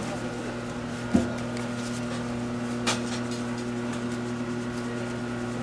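A steady machine hum with a few fixed tones, broken by a soft thud about a second in and a sharp click near three seconds.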